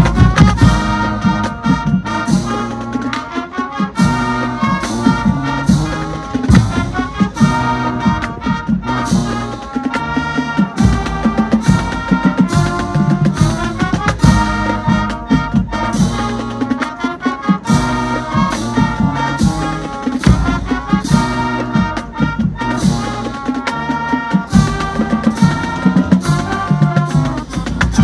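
High school marching band playing: brass section over a steady drumline beat.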